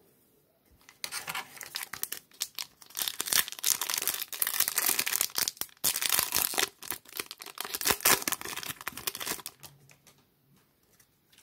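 Foil wrapper of a baseball-card pack being torn open and crinkled by hand: a dense crackling that starts about a second in and stops shortly before the end.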